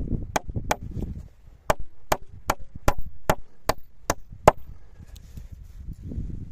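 A hand tool striking wood in a quick, even series of about eleven sharp blows, roughly two and a half a second, over a low rumble of strong wind on the microphone.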